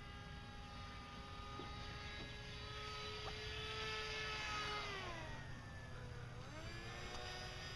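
Whine of the brushless electric motor and propeller on an RC FPV 168 plane in flight, with several overtones. About five seconds in the pitch sinks, then it climbs back up near the end.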